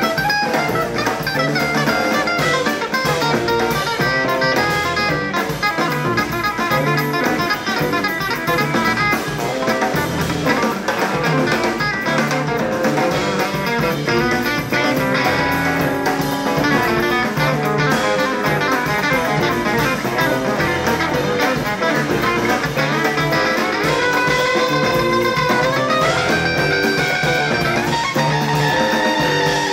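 Live jazz quartet playing: two electric guitars weaving lines over double bass and drums. A note glides upward near the end.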